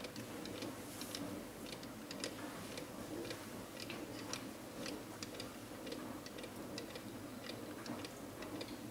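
Small cardboard-kit Stirling engine running, heated by a single candle: its wire crankshaft and piston linkages give faint, light clicks, several a second.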